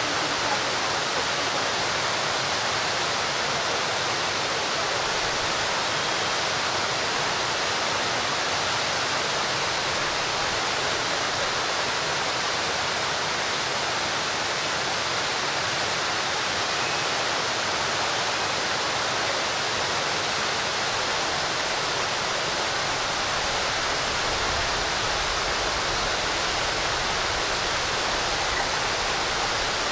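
Large fountain's water falling from a raised basin into the pool below, a steady, unbroken hiss of splashing water.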